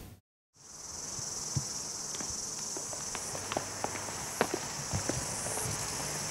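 Footsteps of two people walking on asphalt, irregular sharp steps, over a steady high-pitched chorus of insects.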